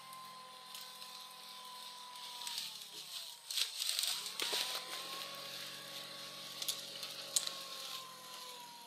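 A motor runs steadily while a log is dragged across a leaf-covered slope. Its pitch sags for a second or two near the middle as it labours under the pull, then comes back up. Twigs and brush crack sharply under the log a few times.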